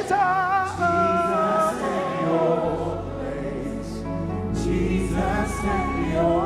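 Live gospel worship music: a singer holds a long sustained note with wide vibrato over sustained keyboard chords and a bass line, with voices singing along.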